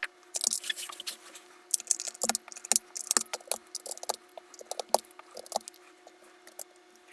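Keycaps and switches being pulled from and handled on a mechanical keyboard: irregular small plastic clicks, scrapes and clatters, sparser near the end.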